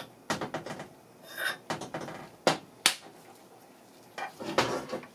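Clicks, knocks and clinks of metal engine parts being handled: a crankshaft turned in a small engine block and its removable timing gear picked up, with two sharp clinks a little before halfway through.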